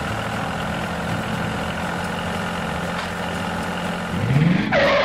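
Tractor engine running steadily at idle, rising in pitch about four seconds in, followed by a short loud burst near the end.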